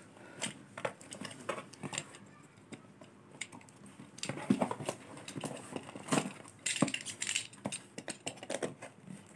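Utility knife blade scraping and slicing at packing tape and a paper shipping label on a cardboard box, with scattered small clicks and taps from the knife and fingers on the box. The cutting is busiest about halfway through.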